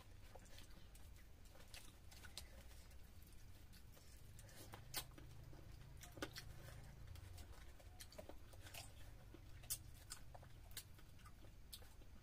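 Faint eating sounds: scattered wet clicks and smacks of chewing and of fingers working fish head curry and rice, a few a little louder than the rest, over a low steady hum.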